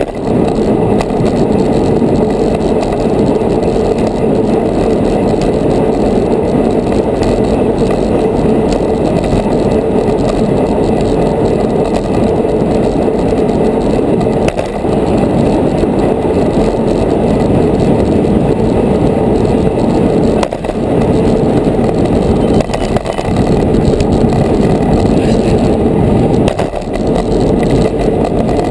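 Steady rush of wind and tyre noise from a road racing bicycle at speed, picked up by a GoPro riding on it; it dips briefly a few times.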